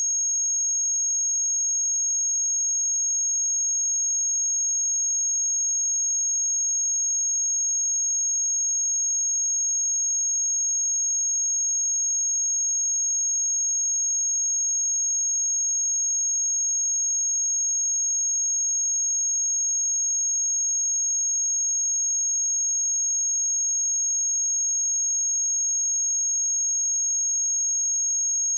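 Pure 6537 Hz sine-wave test tone: one steady high-pitched tone at constant level, unbroken throughout.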